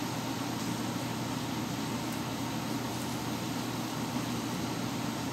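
Steady low mechanical hum with a background hiss, unchanging throughout.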